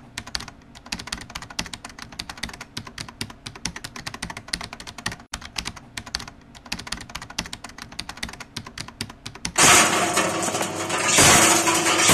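A fast, irregular run of clicks like typing on a computer keyboard. About ten seconds in, a much louder steady machine noise cuts in suddenly and grows louder a second later: a candlenut shelling machine running.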